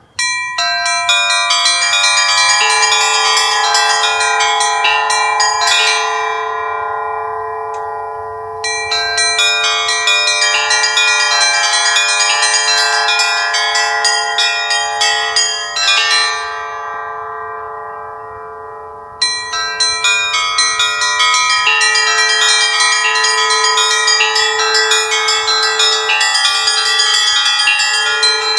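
Festive Orthodox church-bell peal on a portable belfry of seven small bells weighing 5 to 32 kg: quick rhythmic strikes on the small bells over the steady hum of the largest bell. Twice, about six and sixteen seconds in, the striking stops and the bells ring out and fade before the peal resumes.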